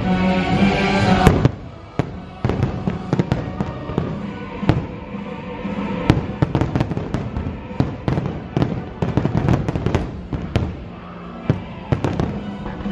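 Aerial fireworks going off in a dense barrage: rapid sharp bangs and crackling pops, several a second, over the show's music. The music is loudest for the first second and a half, then drops out suddenly as the bursts take over, and it comes back near the end.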